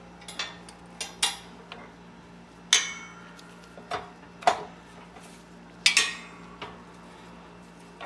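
Small metal parts clinking against metal in a series of separate sharp clinks, some ringing briefly.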